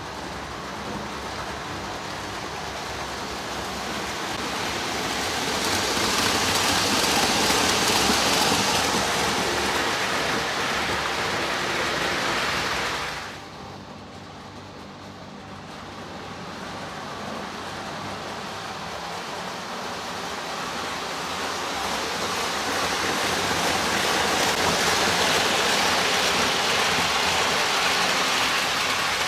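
Lionel O gauge Budd Rail Diesel Car model running on its track: a steady rushing whir from its electric motor and wheels. The whir swells twice as the car comes near and drops off suddenly about halfway through.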